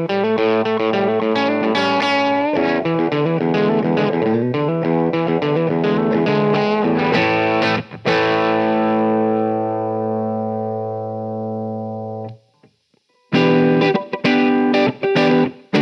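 Epiphone Flying V electric guitar played through a Marshall SC20H amp head: a run of picked chords and notes, then a chord struck about eight seconds in and left to ring for a few seconds before it is muted. After about a second of silence come short, choppy chord stabs.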